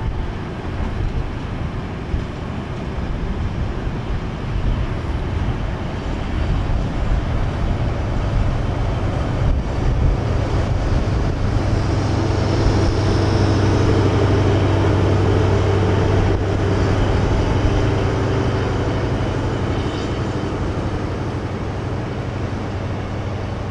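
DB class 601 TEE diesel multiple unit passing, its wheels rolling on the rails. The power car's diesel engine is heard as a steady low hum that grows loudest as the power car goes by about halfway through, then eases off.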